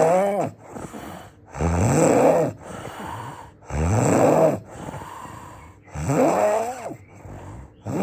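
A person snoring loudly: a rough, pitched snore roughly every two seconds, about four in all, with quieter breathing between them.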